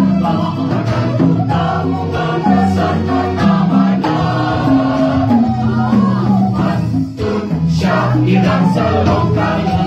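Mixed church choir of women's and men's voices singing together in parts, holding long notes, with a short break between phrases about seven seconds in.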